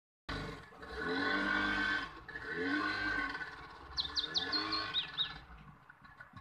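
Two long, pitched animal calls, each a second or more, rising and falling in pitch. They are followed by a bird's quick, high chirps, several in a row about four seconds in.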